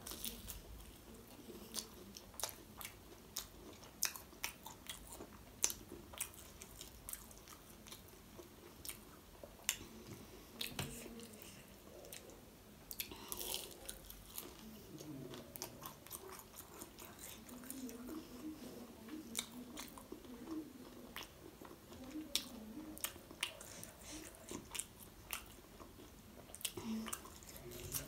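Close-miked biting and chewing of crisp fried momos (fried dumplings), with many sharp wet mouth clicks and some crunching.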